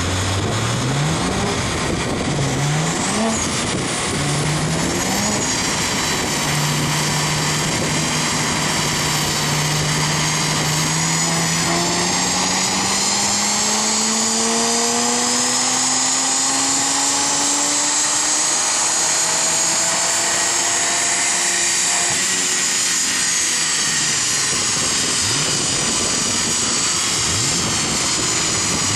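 BMW 1 Series M Coupé's twin-turbo inline-six on a chassis dyno: several quick revs up through the lower gears, then one long full-throttle pull rising steadily in pitch, with a high whine rising alongside. About 22 seconds in the driver lets off and the engine and rollers wind down.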